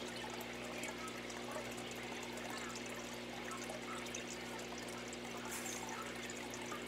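Steady background noise in a room: an even hiss under a constant low hum, with no distinct events.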